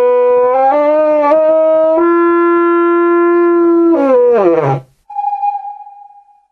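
Drygawka, a shepherd's horn, blown in long held notes that step up in pitch twice, then sag and fall away about four and a half seconds in. A thin steady high tone follows about a second later and fades.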